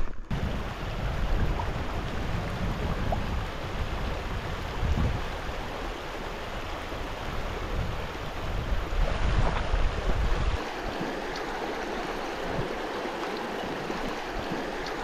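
Shallow river riffle, water running over stones in a steady rush. Wind buffets the microphone in gusts until about ten seconds in, then only the water is left.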